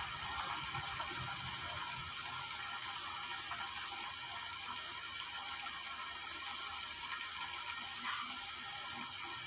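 String beans and chicken liver simmering in their sauce in a wok under a glass lid: a steady hiss of cooking liquid.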